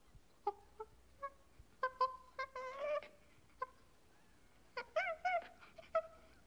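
Macaque monkeys giving short, high squeaks and chirps, some rising or falling in pitch, with a longer wavering call a little before halfway and a quick cluster of calls about five seconds in.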